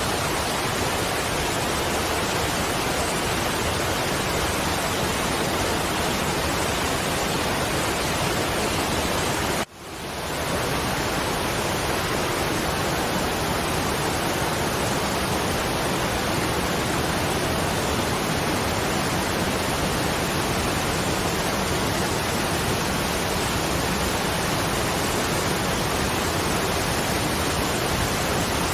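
Waterfall rushing in a steady, even roar of water noise. About ten seconds in it cuts out for an instant and swells back up.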